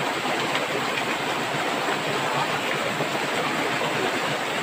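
Steady rush of a fast-flowing, rain-swollen river.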